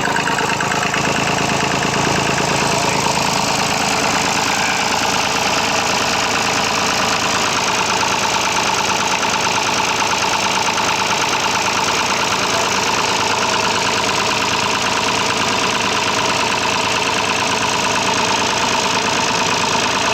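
Massey Ferguson 35's three-cylinder diesel engine running steadily at a slow speed, with a misfire.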